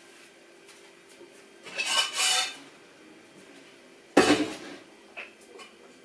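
Dishes and kitchenware being handled: two clattering rattles about two seconds in, then a sharp clank a little past four seconds and a smaller click after it. A steady low hum runs underneath.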